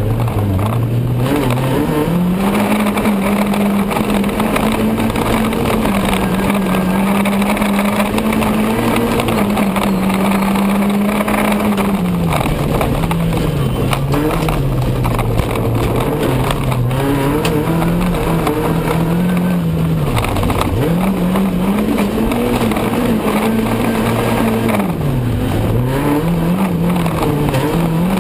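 Dirt-track racing car's engine heard from inside the car at full race pace, its pitch climbing and falling again and again as it revs out and drops back through gear changes and corners, with a few short knocks over it.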